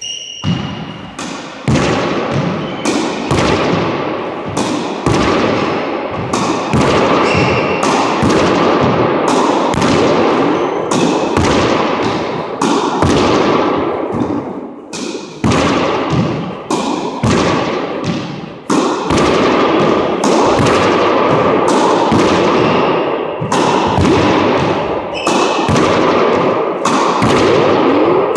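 Racquetball hit again and again with a racquet and rebounding off the court walls, about one to two sharp smacks a second, each ringing with a long echo in the enclosed court. The hits pause briefly about halfway through.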